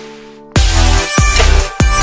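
Electronic dance music: a fading build-up with held tones, then about half a second in a heavy bass line and hard drum beat drop in.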